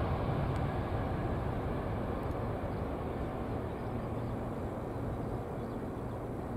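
Boeing 777's twin jet engines at takeoff thrust during the takeoff roll: a steady, deep rumble with a broad hiss on top, slowly fading as the airliner accelerates away.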